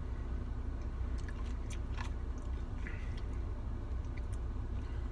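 A person chewing a mouthful of ice cream with candy pieces, with a few small, sharp mouth and spoon clicks, over a steady low hum.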